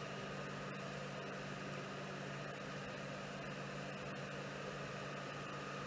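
Steady low mechanical hum with a faint steady whine above it: the room tone of a running machine, unchanging throughout.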